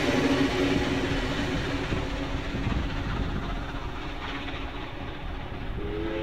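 Steam train hauled by NSWGR 59 class locomotive 5917, carriages rumbling along the rails and fading as the train pulls away round a curve. A brief chord-like whistle, several notes at once, starts near the end.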